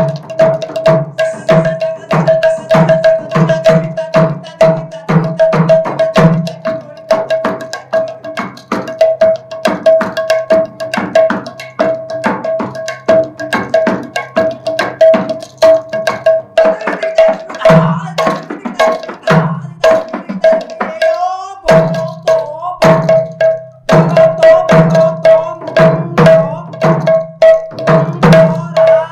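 Mrudanga (Odia barrel drum) played solo in fast rhythmic strokes, sharp treble-head strokes mixed with deep bass-head strokes, over a steady held note. The playing breaks off briefly about three-quarters of the way through and picks up again.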